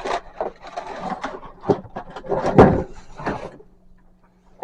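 Cardboard shipping box being opened and handled: a busy run of scraping, rustling and knocking that stops about three and a half seconds in.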